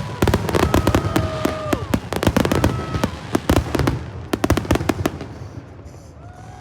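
Fireworks show: rapid volleys of bangs and crackling that thin out and fade after about four seconds.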